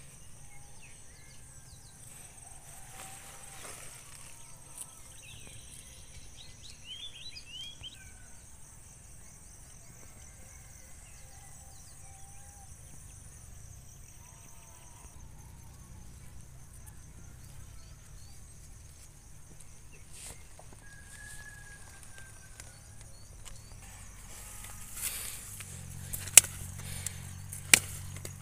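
Steady high-pitched insect trilling, with scattered short chirps over it. Near the end come a few sharp clicks.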